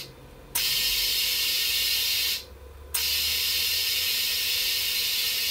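Compressed air from a compressor's 50-litre tank hissing through a dial-gauge tyre inflator into a flat car tyre. It comes in bursts: the hiss stops at the start, comes back about half a second in for nearly two seconds, breaks off briefly, and starts again about three seconds in. Each burst begins with a small click.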